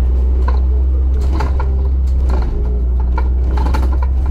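ADL Enviro400 double-decker bus under way, heard from on board: a steady low engine drone with irregular rattling and clicking from the bodywork and fittings.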